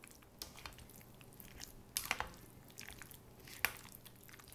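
Cooked egg noodles being tossed with a thick sour cream and cheese sauce in a bowl: soft wet squishing with small clicks of the utensil, and two sharper knocks about two seconds in and near the end.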